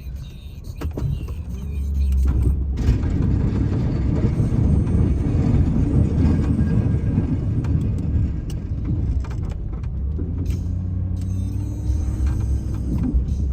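Snow-clearing vehicle's engine working hard while pushing snow in a windrow, with a heavy low rumble that swells about two seconds in and eases off near the end.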